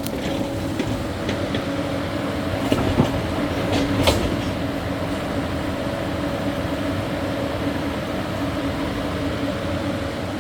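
Caterpillar 308E2 mini excavator's diesel engine and hydraulics running steadily under load while moving dirt, with a few sharp knocks about three and four seconds in.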